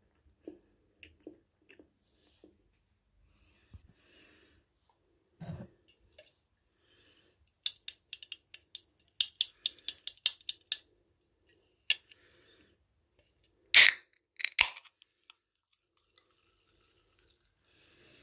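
Soft chewing, then fingernails clicking rapidly against the ring-pull of a Coca-Cola can, about four clicks a second for some three seconds. About two-thirds through come two loud, sharp cracks close together as the can's tab is pulled open.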